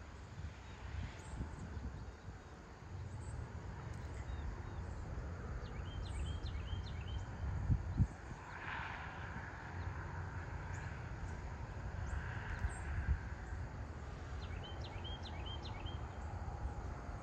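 Morning field ambience: a steady low rumble, with a small bird giving a quick run of short chirping notes twice, about six seconds in and again near the end.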